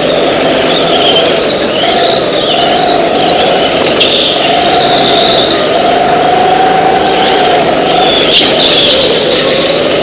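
Go-kart engines running hard in a race, their pitch rising and falling over and over as the drivers throttle up on the straights and lift for the corners.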